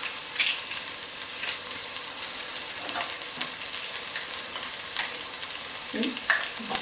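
Diced red onion sizzling steadily in hot olive oil in a saucepan, with a crackling hiss and a few light clicks.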